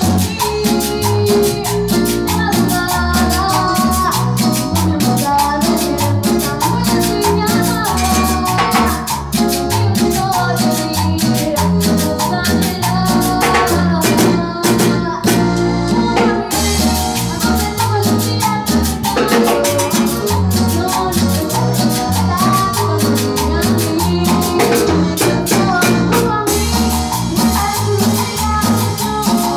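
A live Latin tropical band plays an upbeat song, with timbales, keyboard, a steady pulsing bass and a female singer on microphone. About halfway through, the high percussion stops for a couple of seconds, then comes back in.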